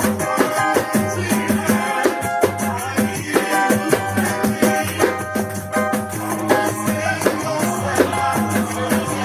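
Pandeiro played in a steady, fast pagode groove, its jingles rattling on every stroke, over a pagode-style backing track.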